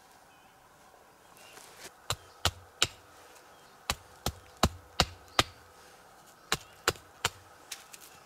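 Wood being chopped: sharp, loud strikes about three a second, in runs of three, five and three with short pauses between, starting about two seconds in, then two fainter strikes near the end.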